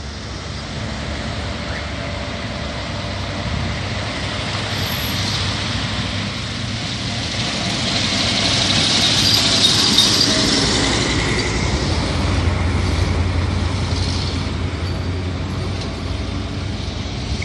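Pond runoff babbling down a roadside ditch, mixed with road traffic: a vehicle passes, loudest about ten seconds in.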